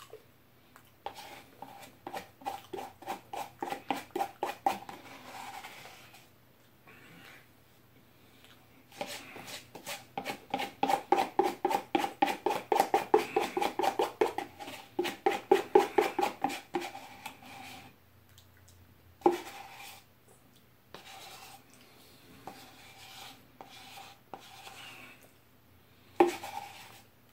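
Spoon scraping the last of the ice cream from the bottom of a paper pint carton, in quick strokes of about four a second. Two long bouts of scraping, the second louder, then a few single scrapes.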